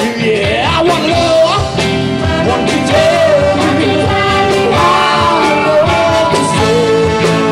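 Live soul band playing at full volume: a horn section of trumpets, trombone and saxophone over drums and bass, with singing.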